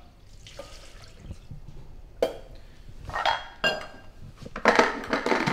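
Milk pouring from a stainless steel jug into a Thermomix bowl as a soft, steady pour. From about two seconds in come knocks and clinks as the jug is set down and the Thermomix lid is handled, loudest near the end as the lid goes on.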